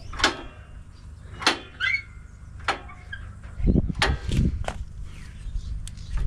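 Scattered sharp clicks and knocks of hands and a tool working on a motorcycle's rear brake light switch and its spring, adjusting its tension, with a low rumble of handling noise in the middle.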